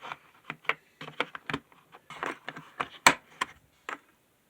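Irregular clicks, knocks and short scrapes of hard plastic and metal tool parts being handled, with one sharper knock about three seconds in.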